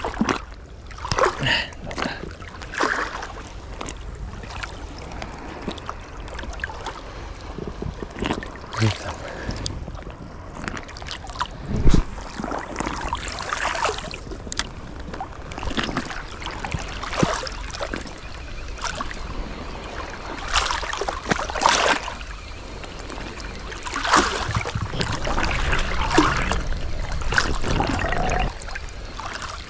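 Sea water splashing and lapping close to the microphone in shallow, choppy water, with irregular splashes of varying strength.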